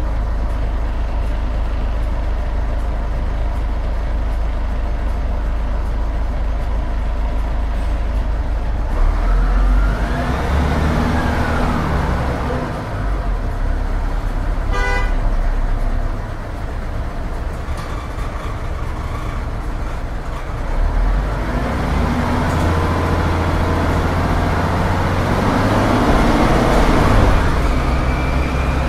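Büssing DE 74 double-decker bus, its Büssing U10 underfloor diesel running at a steady idle, then pulling away: the engine rises and falls through the Voith DIWA automatic gearbox. It drops back about halfway through and pulls up again near the end. A short tone sounds about halfway through.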